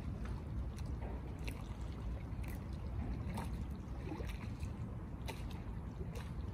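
Gentle lake water lapping against a stone embankment, with small irregular splashes and ticks about once a second over a steady low rumble.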